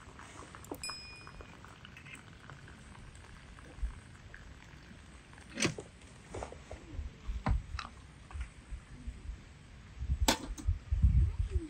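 Hot water running from a samovar's tap into a glass teapot, a faint steady trickle. After about five seconds the tap is shut, and sharp clinks and knocks of metal and glass follow, loudest near the end as the teapot is set on top of the samovar.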